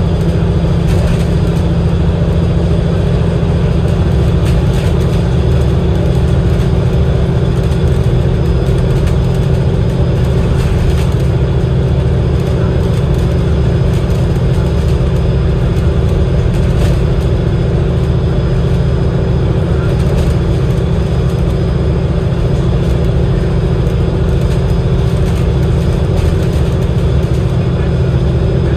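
Cummins L9 inline-six diesel engine of an Alexander Dennis Enviro500 MMC double-decker bus running at a steady, unchanging note, heard from on board with constant low road and engine noise.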